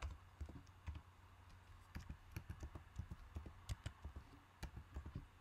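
Faint, irregular keystrokes on a computer keyboard as a short command and a password are typed. The clicks come more often in the second half.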